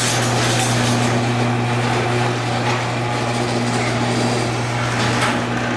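2003 LiftMaster Professional 1.5 HP chain-drive garage door opener running, moving the door: a steady motor hum with the even rattle of the chain and door travel.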